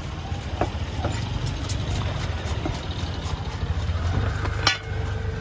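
A large fish-cutting knife knocks on a wooden chopping block a few times as fish is cut, with the sharpest knock near the end. A steady low rumble runs underneath.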